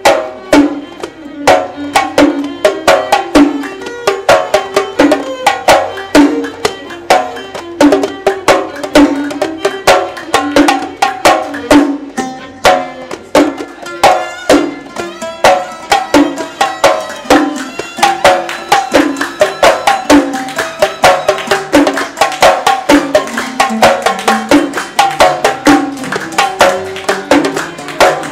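Instrumental passage of Gulf sawt music: a plucked oud melody with violin over a steady, quick beat of small mirwas hand drums.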